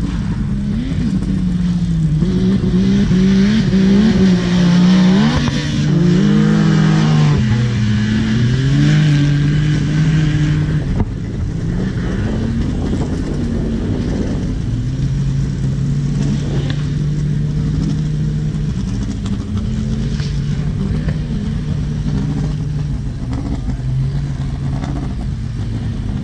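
Off-road race vehicle engines revving and easing off, their pitch rising and falling as they race around a dirt track. They are loudest in the first ten seconds; after a sudden change near 11 s a steadier engine drone follows.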